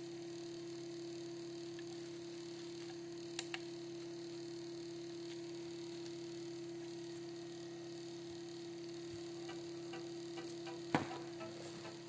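Steady electrical hum, one even tone, with two small clicks about three and a half seconds in and a sharper click near the end followed by faint ticking.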